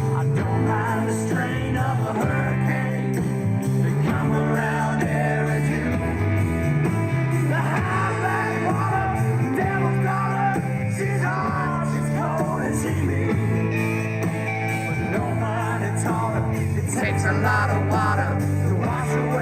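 A rock song playing, with guitar and a singing voice over a steady band.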